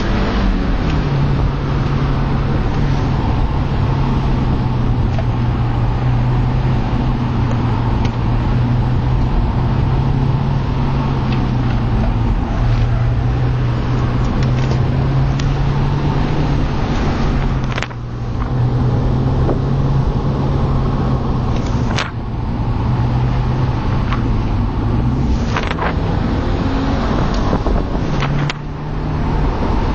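BMW Z4 E85 2.0i's four-cylinder engine running steadily while the car is driven, under heavy road and wind noise. The engine note drops out briefly three times, with a slight shift in pitch around the last drop.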